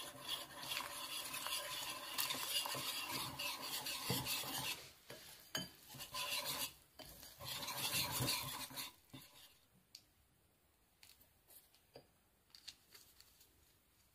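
Wire whisk scraping and clinking against a glass bowl as flour and water are beaten into batter. It comes in two spells, one of about five seconds and a shorter one a few seconds later, then only a few faint taps.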